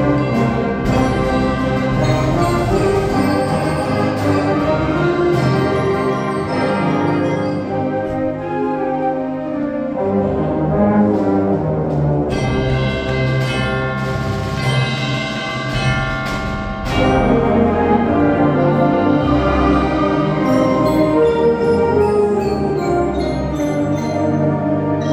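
Student concert band playing a piece together: woodwinds and brass sustaining chords over percussion. The band gets louder about 17 seconds in.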